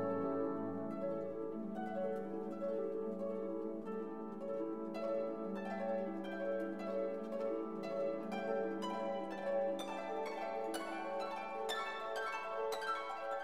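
Instrumental background music: quick plucked-string notes over held lower tones, the plucked notes growing busier about five seconds in.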